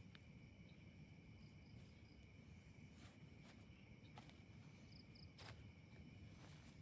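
Near silence with a faint, steady, high insect trill in the night, a few faint clicks and brief chirps over it.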